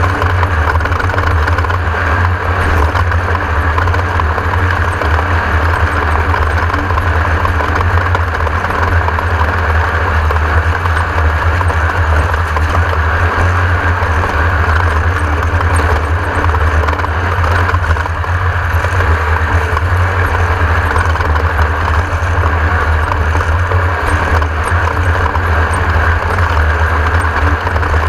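Class 1600 desert race car's engine running steadily, a constant low drone with no clear rise or fall in revs.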